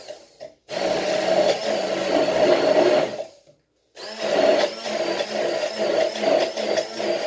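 Immersion (stick) blender running in a tall jar of cooked vegetables, puréeing them. It runs in two bursts: one of about two and a half seconds starting just under a second in, then a longer one from about four seconds in, with a brief stop between. Its motor whine wavers in pitch as the blade works through the mix.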